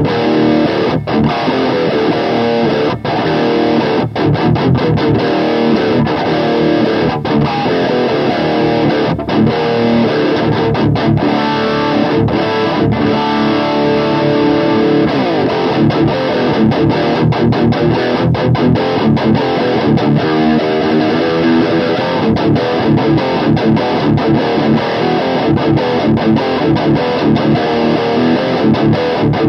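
Electric guitar riffing through a LEKATO CubeBaby amp modeler and a Harley Benton Thunder 99 power amp pedal, heard from a 2x12 cab miked with an SM57. The riff is broken by short stops in the first half and settles into a fast, even rhythm later on.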